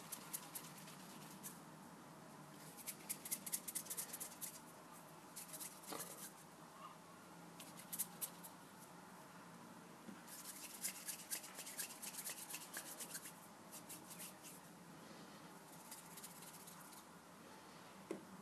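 Hands rolling and pressing play dough on a tiled surface: quiet spells of fine crackly rubbing and light tapping that come and go in short bursts.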